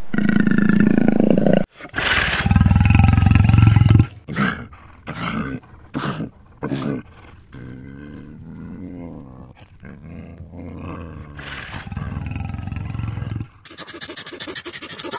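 A lion roaring: one loud, deep roar followed by a run of short grunting calls, then quieter calls. It opens on the tail of another big cat's low call, which cuts off abruptly.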